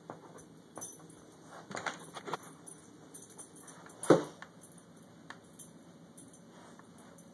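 Small metal jingling and clicking of a dog's collar tags as the dog moves about, with a cluster of jingles about two seconds in and a single dull thump about four seconds in.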